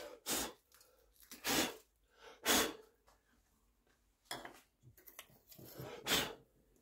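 A person's short, hard puffs of breath, about six of them at uneven intervals.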